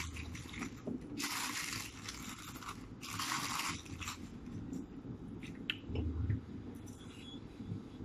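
A person slurping stir-fried egg noodles, two long slurps about one and three seconds in, then chewing with a few small clicks of cutlery.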